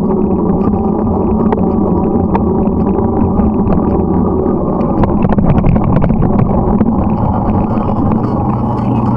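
Steady vehicle running noise: an engine drone with road and wind rush, level and unbroken throughout.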